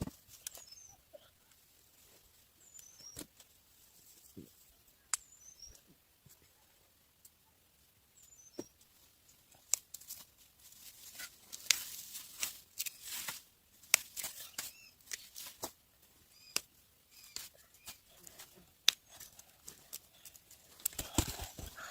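Corn plants rustling and crackling as ears are picked by hand: dry leaves and husks scrape and tear, with sharp snaps and clicks, busier in the second half. A few faint high chirps come early on.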